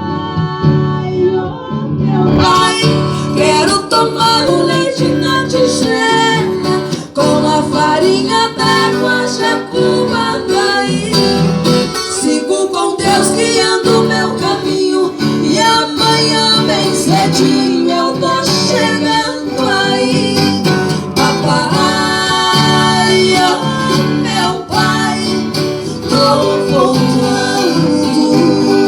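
Music: a song led by acoustic guitar, in a country style.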